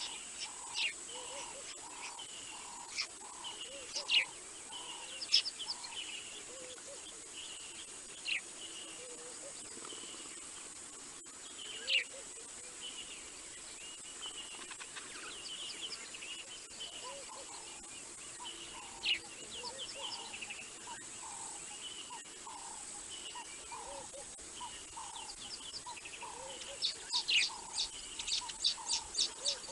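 Wild birds calling and chirping at dusk, with a run of evenly repeated notes, about two a second, and a burst of rapid chirping near the end, over a steady high-pitched whine.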